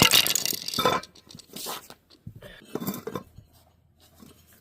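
Handling noise from working a tire and rim by hand: a loud rustling, clattering stretch in the first second, then a few shorter scrapes and knocks that die down toward the end.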